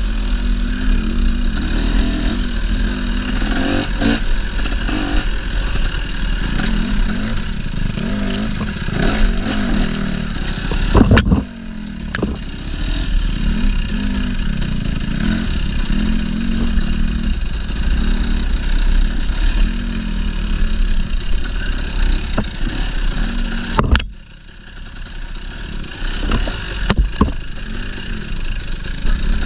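Dirt bike engine running under constantly changing throttle, its pitch rising and falling. A sharp knock comes about 11 seconds in and another about 24 seconds in; after each the engine drops off briefly, most deeply after the second, before picking up again.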